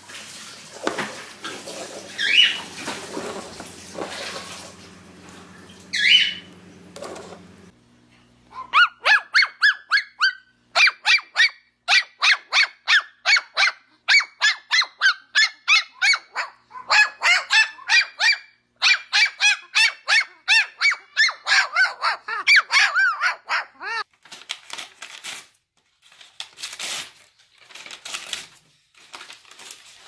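Parrot calls: a peach-faced lovebird gives two short high chirps. Then a white cockatoo makes a long run of rapid, evenly repeated calls, about three a second, which give way to a few sharp clicks near the end.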